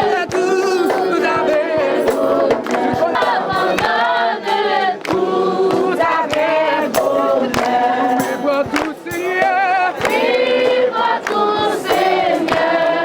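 A group of voices singing together in chorus, the notes held and wavering, with sharp percussive hits scattered through the singing.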